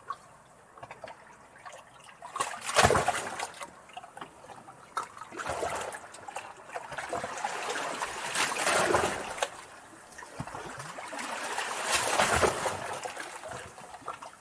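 Sea waves washing in, four surges of water about three seconds apart with quieter wash between them. The loudest comes about three seconds in.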